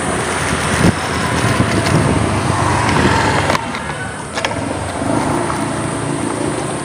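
Road traffic noise, with a motor vehicle running close by; louder in the first half, easing off a little past the middle.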